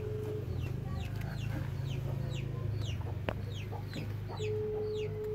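Chickens nearby, with chicks peeping over and over in short falling chirps, a few per second, over a low steady hum. Near the end a steady tone is held for about a second.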